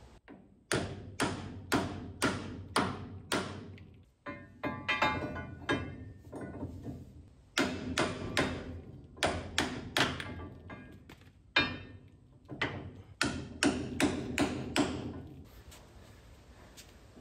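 A hammer beats on the heavy steel clevis hardware at the rear of a 5-ton military truck. The blows come in runs of about two a second, with pauses between the runs, and each blow rings a little.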